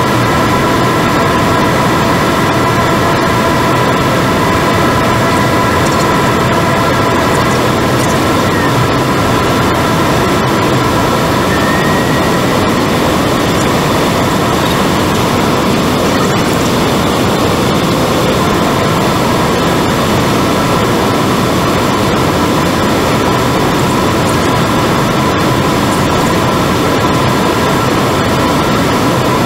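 Twin turboprop engines of an ATR 72-500 heard from inside the cockpit while taxiing at low power: a loud, steady drone with several steady whining tones, which grow a little weaker after about the first half.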